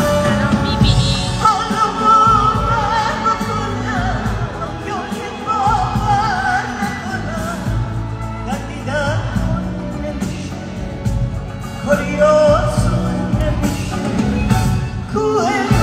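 A woman singing a Persian pop song live with vibrato over a full band, in the reverberant sound of a concert hall as picked up by a phone in the audience.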